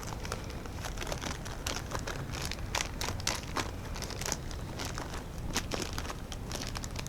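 Plastic bag of chocolate chips crinkling as the chips are worked out into a pie tin, with scattered light clicks and rustles.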